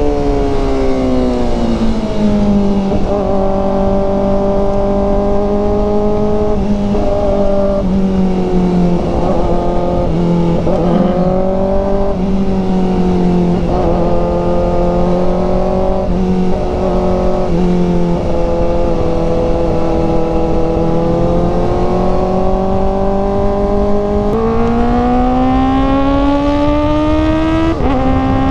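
Kawasaki ZX-4RR's 399 cc inline-four engine running under way, over low wind rumble. The engine note falls in the first couple of seconds and holds at moderate revs with small changes, then rises near the end before dropping sharply as it shifts up.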